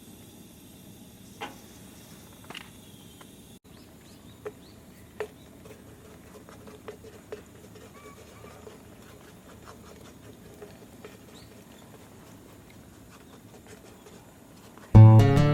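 Scattered faint clicks and light taps over a quiet background, a dozen or so spread irregularly. Strummed acoustic guitar music comes in loudly at the very end.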